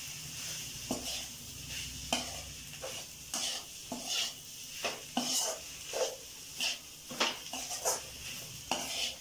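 A perforated metal spoon stirring and scraping battered fried mushroom masala around a metal kadai in repeated strokes, a little more than one a second, over a faint sizzle on low flame.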